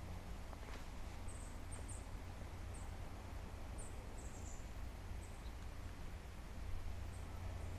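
A small bird's high, thin chirps: short notes repeated irregularly, alone or in quick pairs and runs of three, over a steady low background rumble.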